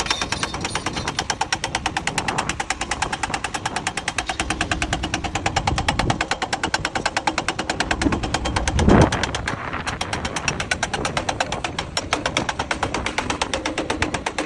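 Excavator-mounted hydraulic rock breaker hammering at rock in fast, even rapid-fire blows, with a louder thump about nine seconds in.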